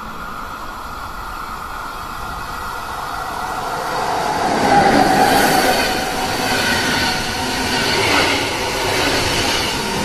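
Swiss SBB electric passenger train approaching and passing close by, its rolling noise building to a peak about five seconds in and staying loud as the coaches go past. A steady high-pitched ringing is heard as it approaches.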